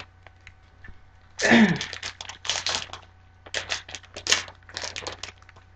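Plastic wrapper of a Magic: The Gathering booster pack crinkling and tearing as it is opened, in a run of short, sharp rustles. A brief vocal sound comes about a second and a half in.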